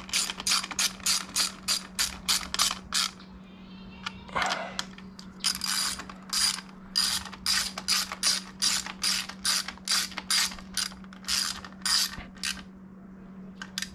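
Socket ratchet wrench tightening a bolt in quick, even back-and-forth strokes of clicking, about three to four a second. The strokes pause for about two seconds a few seconds in, then go on until near the end.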